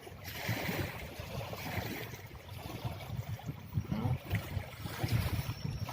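Wind gusting over the microphone in an irregular low rumble, with a faint rush of lapping water.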